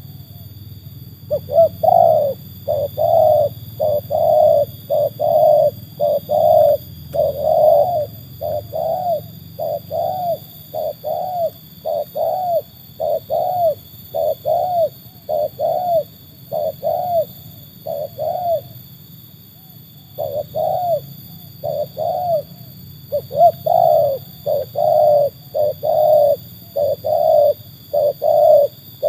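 Spotted dove cooing in a long, close-spaced series of coos, about one a second, with a short break about two-thirds of the way through.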